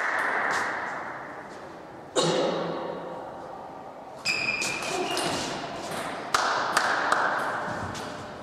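Table tennis ball being hit back and forth in a rally: sharp clicks of the celluloid ball off the paddles and the table, some with a short ping, echoing in the hall.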